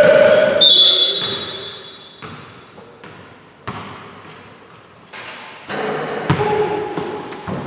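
Basketball bouncing on a wooden gym floor, single bounces ringing in the large hall, settling to about one every half second near the end. A loud high-pitched tone and voices come at the start.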